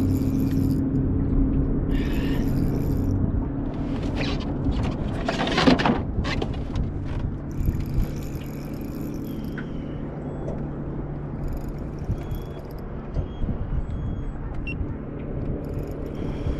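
Boat motor running steadily, a low hum whose pitch drops a few seconds in, with a few knocks and short bursts of high hiss over it.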